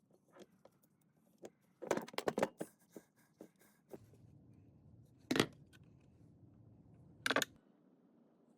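Clicks and clatter of parts being handled, a quick cluster about two seconds in, then a low steady hum for a few seconds with two sharp knocks over it, the hum stopping near the end.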